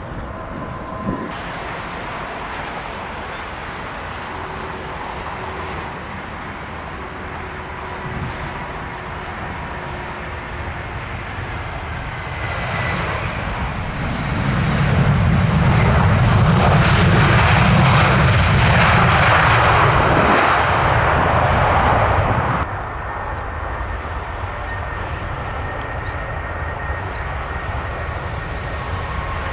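Jet airliner passing low overhead on its landing approach: the engine noise builds, stays loud for about eight seconds in the middle, then drops away abruptly.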